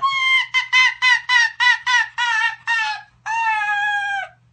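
White fox calling: a rapid string of about ten short, high squeaky calls, then one long drawn-out call that sags slightly in pitch near the end.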